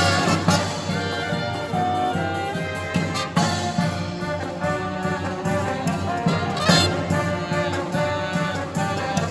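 A brass marching band playing live, with trumpets and trombones carrying the tune over drums, and sharp cymbal or drum hits a few times.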